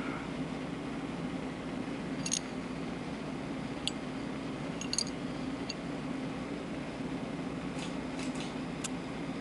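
Steady low hum of room noise, with a handful of faint, sharp metallic ticks as an iced-out dog tag pendant is turned over in the fingers, its bail clicking against the tag; the ticks come singly and in pairs through the middle, with a quick cluster of four near the end.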